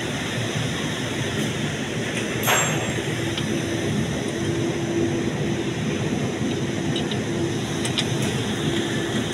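Steady mechanical rumble and hum of a car repair workshop. A single short metallic knock comes about two and a half seconds in, and a few light clicks near the end.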